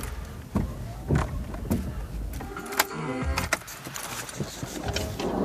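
Car cabin noise while driving: a steady low rumble with a string of sharp clicks and rattles, like keys or small objects jangling.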